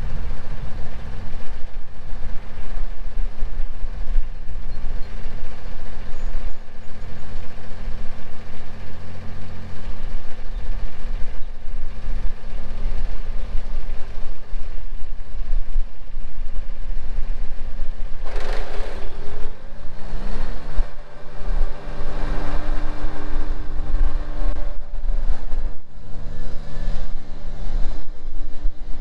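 Lawn mower engine running steadily. About eighteen seconds in its speed shifts with a brief slide in pitch, then it holds steady again.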